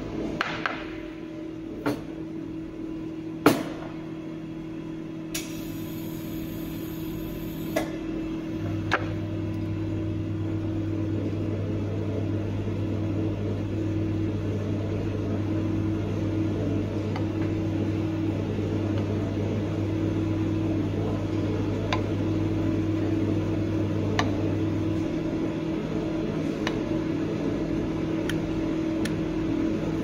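Steady mechanical hum of café equipment, with a deeper hum that comes in about nine seconds in and stops about sixteen seconds later. Over it, scattered light clinks and taps of a ceramic cup and steel milk pitcher being handled, the sharpest about three seconds in.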